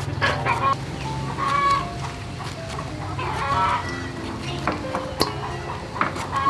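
Chickens clucking now and then, with a few sharp clicks from a knife cutting sponge gourd.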